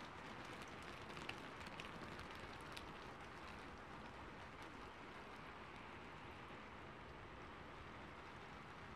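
Faint steady hiss, with a few faint ticks in the first three seconds.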